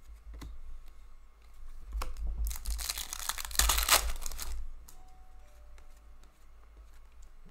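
The wrapper of a hockey trading-card pack is torn open and crinkled by hand, a dense crackly tearing that starts a little over two seconds in and lasts about two seconds. It is loudest near the end of the tear. A few light clicks of cards being handled come before it.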